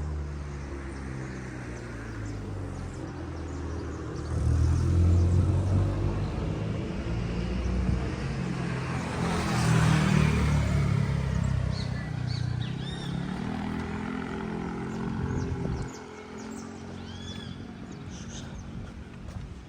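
A motor vehicle's engine running close by and driving past, loudest around the middle, cutting off suddenly about sixteen seconds in. Short high chirps, like birds, come in the second half.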